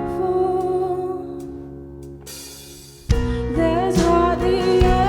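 Worship band performing a Christian song with singing: held notes fade away, then about three seconds in the full band comes back in loudly with the vocals.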